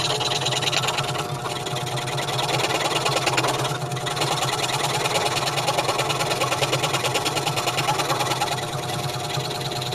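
Delta scroll saw running steadily, its blade stroking up and down rapidly as it cuts a letter shape out of a 5/4 wooden board.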